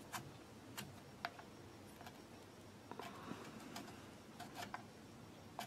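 A handful of faint, sharp metal clicks, irregularly spaced, as a small throttle lever is handled and worked onto the splined throttle shaft of a Simms diesel injector pump.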